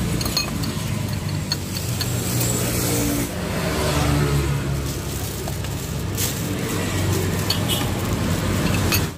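Street traffic running close by: motor vehicle engines humming and passing, with a few light clinks of utensils against bowls.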